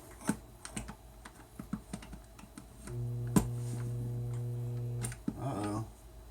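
A few light clicks and taps, then about three seconds in the over-the-range microwave vent fan motor hums steadily for about two seconds without starting to turn: it is stalled because it is wired without its run capacitor. A sharp click sounds during the hum.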